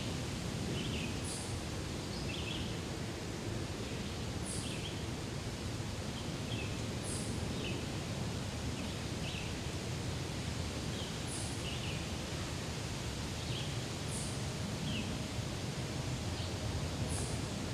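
Daytime forest ambience: a steady rustle of wind through leaves with short, high bird chirps every second or two.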